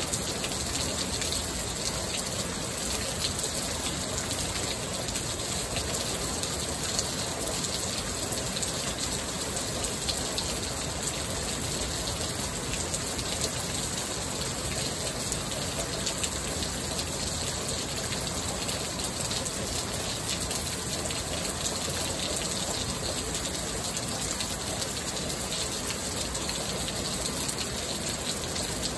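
Heavy rain falling steadily, a dense even patter of drops with water pouring off the edge of the roof.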